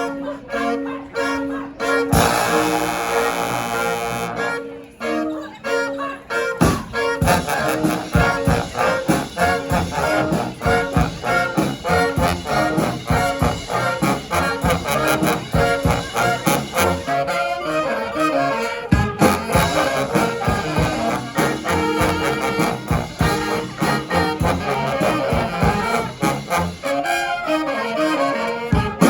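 Brass band playing live: trombones and trumpets with saxophone over a groove. The horns play fairly sparsely for the first several seconds, then a steady heavy beat comes in about seven seconds in and the full band plays on.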